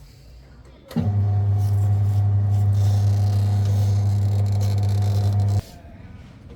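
A loud, steady electrical hum, like a machine or appliance motor. It switches on abruptly about a second in and cuts off abruptly about four and a half seconds later.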